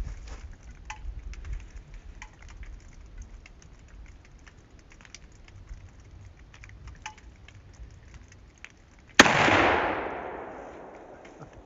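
A single scoped-rifle shot about nine seconds in: one sharp crack with a long echo that fades away over about two seconds.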